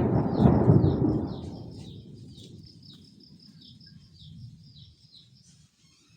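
Thunder from a nearby strike, loud at the start and rolling away into a low rumble over about two seconds, with faint rumbling after. High chirping repeats about two or three times a second throughout.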